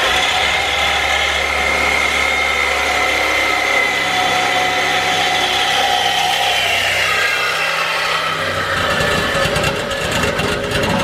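Power cutting tool slicing through the stock steel exhaust pipe at the muffler outlets: a steady whine whose pitch sinks slowly as the tool bogs under load, stopping near the end.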